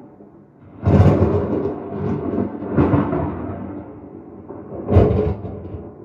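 Monster-film sound effects played through in-ceiling home-theater speakers and heard in the room: three loud, sudden hits about two seconds apart, each fading away over a second or so.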